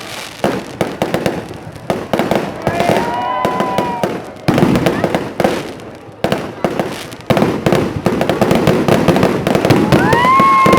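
Fireworks bursting and crackling in rapid, overlapping succession, with a couple of longer held tones rising through it, one about three seconds in and one near the end.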